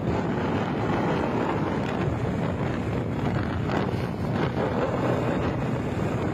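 Steady wind buffeting the microphone on a moving motorbike, with rushing vehicle noise beneath.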